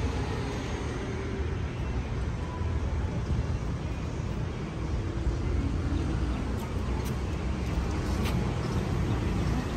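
Outdoor street ambience: a steady low rumble of traffic.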